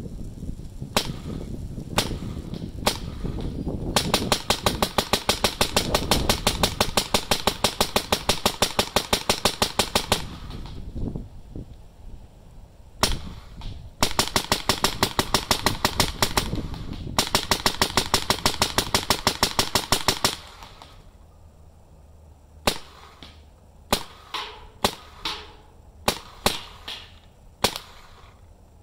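Adrenalin Angel LCD electropneumatic paintball marker firing: three single shots, then three long rapid strings at about seven shots a second, its rate-of-fire cap, then a run of scattered single and double shots.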